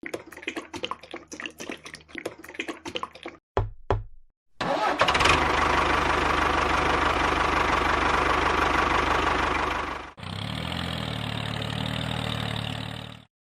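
A rapid clattering of clicks and knocks, then a couple of low thuds. A small motor then starts up and runs steadily and loudly. About ten seconds in it cuts to a lower, more even running hum.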